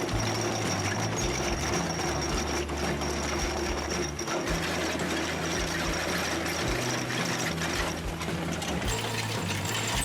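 Machinery running with a fast, steady mechanical clatter, over a low bass line of background music.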